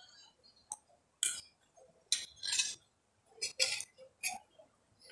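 A metal spoon clinking and scraping against a plate as rice is scooped up: several short separate clinks and scrapes.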